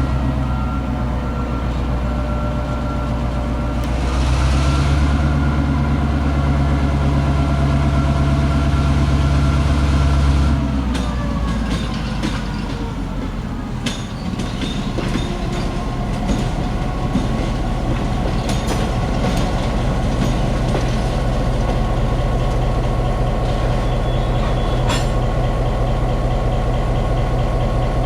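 EMD GP9 locomotive's 16-cylinder 567 two-stroke diesel working under throttle, with a short burst of air hiss about four seconds in. About eleven seconds in the engine throttles down, its pitch falling, and settles into a lower steady run while the moving cars give scattered sharp clicks and knocks.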